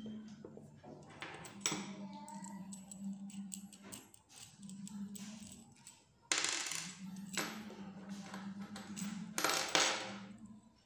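Small metal bolts, washers and rubber pads handled and set down on a wooden machine table: a few sharp knocks and clinks, the loudest about six seconds in and again near the end, over a faint steady hum.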